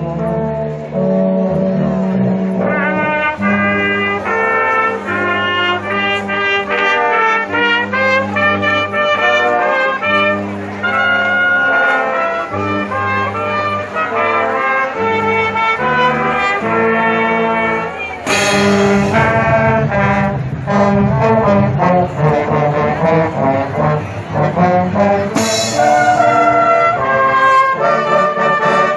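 Marching band playing: trumpets and trombones carry a melody of held notes over a low bass line, with two loud percussion crashes about seven seconds apart in the second half.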